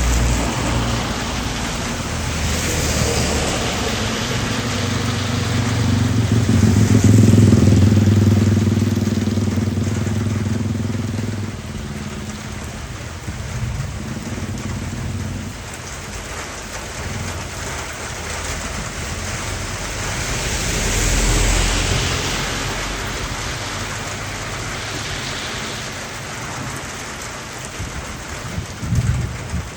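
Heavy rain pouring steadily. Over it a low droning hum builds to its loudest about seven seconds in and stops around twelve seconds in, and a deeper rumbling swell rises and fades about twenty-one seconds in.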